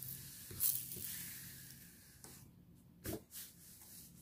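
Parchment paper rustling softly as hands smooth it down over a diamond painting canvas, with a louder swish just under a second in and a short knock about three seconds in.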